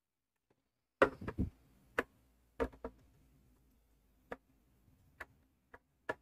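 Sharp clicks and light knocks of small metal and plastic parts on a sewing machine being handled during disassembly: a quick cluster of knocks about a second in, then single clicks every half second to a second.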